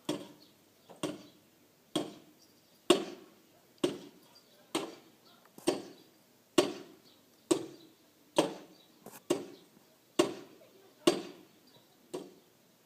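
Steady hammering, a dull blow a little under once a second, each dying away quickly, with an occasional quick double strike.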